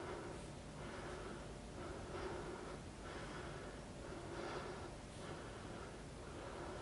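A man breathing in a steady rhythm, about one breath a second, with the effort of one-arm dumbbell curls.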